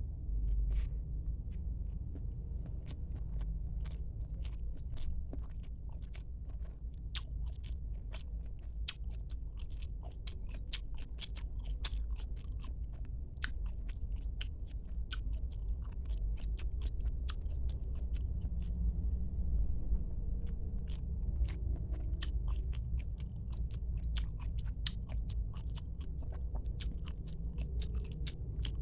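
Close-up chewing and biting of squid, a dense, irregular run of sharp clicks and crunches. A steady low rumble runs underneath.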